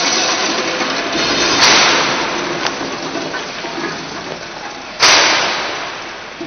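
Pellet dosing and bagging machine running with a steady mechanical din. Two sudden rushing bursts come about three seconds apart, each fading over about a second, with a single sharp click between them.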